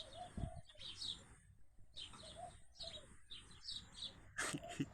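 A group of small birds chirping repeatedly, with a soft low thud about half a second in and a short knock near the end.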